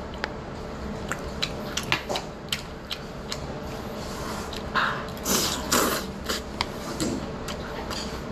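Close-up eating sounds: chewing, with chopsticks clicking against a plate, and a couple of louder, longer noisy bursts just past halfway.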